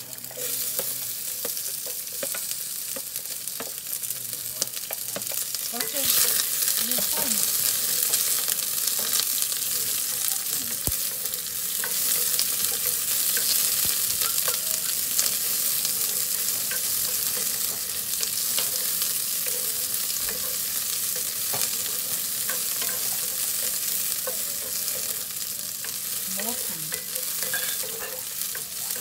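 Sliced red onion sizzling in hot oil in a cast-iron skillet, stirred with a wooden spoon, with occasional light clicks of the spoon against the pan. The sizzle grows louder about six seconds in.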